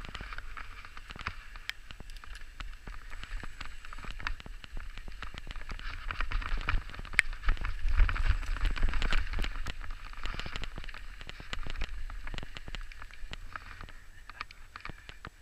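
Santa Cruz Bronson mountain bike rolling fast down a wet dirt trail: tyre hiss on damp soil with dense crackling ticks of grit and small stones. A low wind rumble sits on the helmet-mounted camera. The noise swells around the middle and tails off near the end.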